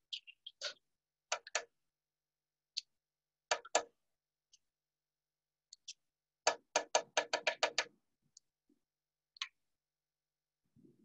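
Kitchen utensils clicking and knocking against containers on a counter: scattered single taps, then a quick run of about eight taps about six and a half seconds in.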